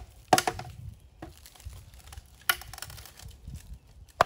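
Hammer blows on a wooden driveway-light post housing, knocking the old fixture loose: three hard, sharp knocks and one lighter one, spaced a second or more apart.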